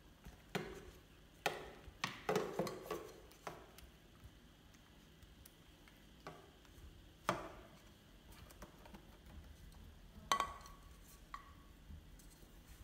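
Scattered light knocks and taps of a plastic baby bottle and a baby monkey's hands against a plastic chair and a glass-topped table: a cluster of knocks two to three seconds in, another about seven seconds in, and the loudest, a clink that rings briefly, about ten seconds in.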